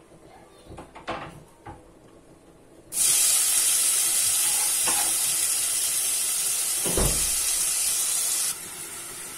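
Chopped red onion tipped into hot olive oil in a stainless steel pot, sizzling loudly at once about three seconds in. There is a single dull knock partway through, and the sizzle drops to a lower level near the end.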